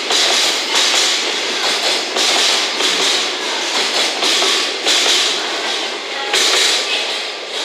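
Container flat wagons of a freight train rolling past at close range, their wheels clattering in surges every second or so on a steady rumble of rolling noise, easing off near the end as the last wagons go by.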